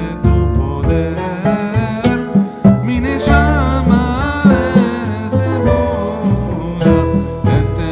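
Background music: a song with a singing voice over plucked string accompaniment and a steady bass.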